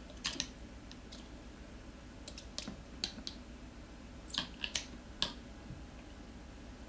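Tire spoons clicking and scraping against the wheel rim in irregular small clusters as they are worked under a stubborn tyre bead to lever it off the rim.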